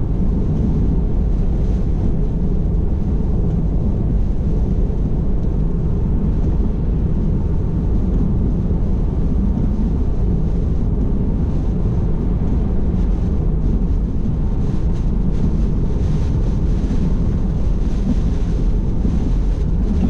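Steady low rush of gusting crosswind and wet-road noise heard inside a Tesla Model 3's cabin at highway speed.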